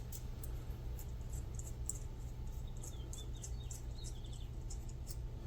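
Faint light ticks and a few small squeaks as the acorn nut and a small nut are unscrewed by hand from a small bolt, over a steady low hum.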